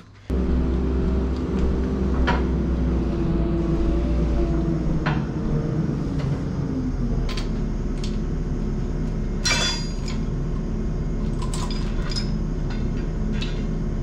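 Steady engine-like drone with a low hum, under scattered metal clinks and taps from hand work on an engine hanging from an engine lift's chain. One louder ringing clank comes about nine and a half seconds in.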